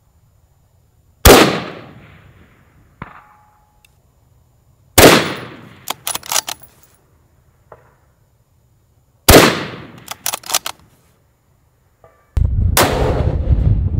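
Four shots from an unsuppressed Desert Tech SRS A2 bolt-action bullpup rifle in 6.5 Creedmoor, about four seconds apart, each with a long echoing tail. A short, faint ringing ping follows the first shot, and quick metallic clicks of the bolt being worked follow the second and third. A loud steady low noise sets in near the end, just before the last shot.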